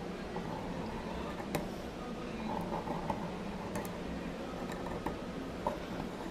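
Faint scratching and a few scattered ticks of a paint marker's nib drawing circles on a painted clam shell, over a low steady background hum.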